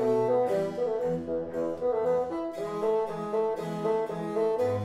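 Instrumental background music: a brass-sounding ensemble playing in chords over a moving bass line, the notes changing about twice a second.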